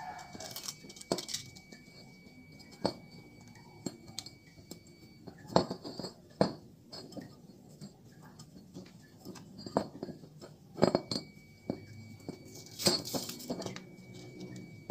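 Scattered light clicks, clinks and knocks from hands handling a metal CVT clutch bell and a strip of abrasive cloth on a concrete floor, the loudest knocks coming a few times midway through and near the end. A faint steady high whine sounds in the background during the first third and the last third.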